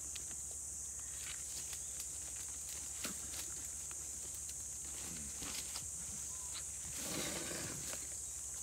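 Komodo dragons feeding on a wild boar carcass: scattered crackles and snaps of dry twigs and leaf litter as they pull and tear at it, over a steady high-pitched drone. About seven seconds in comes a rough, rasping noise lasting about a second.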